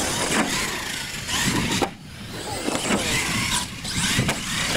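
1/10-scale R/C monster truck's motor whining, rising and falling in pitch as the throttle is worked during a run-up and jump, with a brief drop-off about two seconds in.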